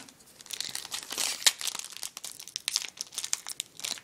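Foil wrapper of a Topps Chrome trading-card pack being torn open and crinkled by hand: a run of irregular, high-pitched crackles, with one sharper crackle about a second and a half in.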